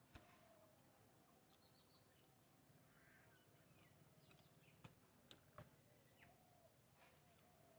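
Near silence: faint outdoor quiet with birds chirping in the distance now and then, and a few soft clicks, one near the start and three around the middle.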